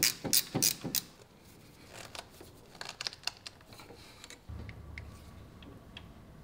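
Hand tools clicking on metal fuel-line fittings and hose clamps: a quick run of sharp clicks in the first second, then a few faint ticks. A low hum comes in about two-thirds of the way through.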